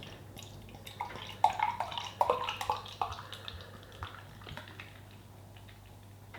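Lager being poured into a glass, gurgling and splashing for about three seconds from about a second in, then tailing off.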